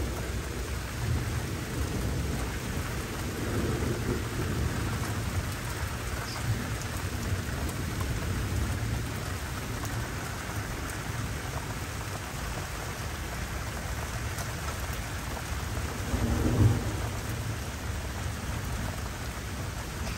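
Steady rain falling during a thunderstorm, with low rumbles of thunder; the loudest roll of thunder swells up about three-quarters of the way through.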